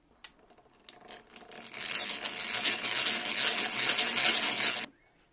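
Hand drill with a twist bit boring a hole into a wooden rail through masking tape. A few light clicks as the bit is set, then about three seconds of steady drilling that stops suddenly.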